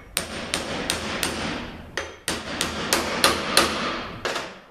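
Hammer striking a bushing driver to drive a bushing into a ZF 6HP26 transmission's C-clutch drum: about a dozen sharp metal-on-metal taps, roughly three a second, each with a short ring, with a brief pause near the middle.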